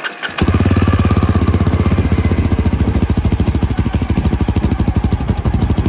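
Yezdi Adventure motorcycle's single-cylinder engine starting about half a second in, then idling through its stock black muffler with a steady, fast exhaust pulse.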